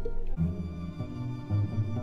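Background music on string instruments, with held notes that change to new ones about a third of a second in.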